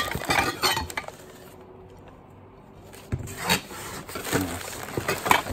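Crumpled newspaper wrapping rustling and dishes knocking and clinking as hands rummage through a packed cardboard box. There is a quieter pause of about two seconds in the middle, then several separate knocks.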